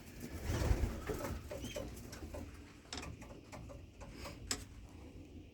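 Young racing pigeons cooing faintly in the loft, with a couple of soft clicks.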